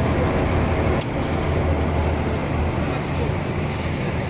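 Machinery of a french fry production line running: a steady low motor hum under a constant mechanical din.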